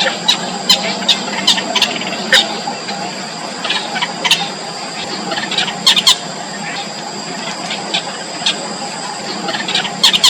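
Yellow bittern nestlings giving short, sharp squeaky calls in irregular clusters, typical begging calls at a feeding. The calls sit over a steady high-pitched background drone.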